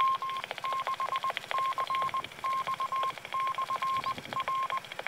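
A single-pitch beep keyed on and off in dots and dashes, in about six groups, from the Yaesu FTM-10R radio's speaker: Morse code, which here is the Mt. Diablo repeater (W6CX) identifying itself once the last transmission has ended.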